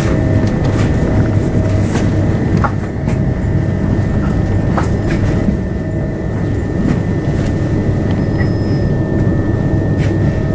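Electric passenger train running along the line, heard from on board: a steady low rumble with a constant whine and scattered clicks of the wheels over the rails.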